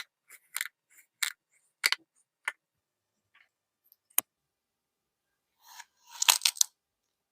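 Crunchy kinetic sand being cut and pressed, giving a string of short crisp crunches, with a denser burst of crunching near the end.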